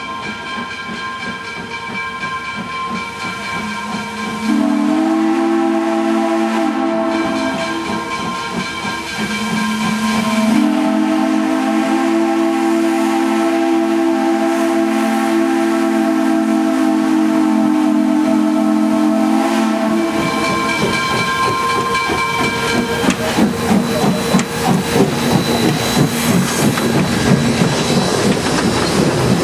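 The steam whistle of Wilmington & Western 0-6-0 No. 58, a steam locomotive, blowing long, loud blasts that step in pitch a few times and stop about two-thirds of the way through. The locomotive then passes close by, and its running gear gives a quick, steady beat.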